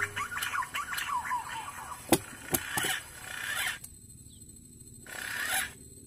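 Green pigeons giving quick, sliding whistled calls over the first two seconds or so. Three sharp clicks follow, then two brief rushes of noise.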